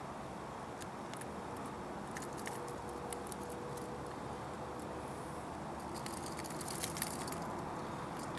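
Light metallic clicks and rattles of a fishing lure and pliers as a hook is worked free from a snook's mouth, coming thicker near the end, over a steady background hiss.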